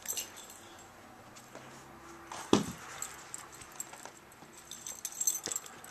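A big dog moving about close by: scattered light clicks and rustles, with one short louder sound about two and a half seconds in.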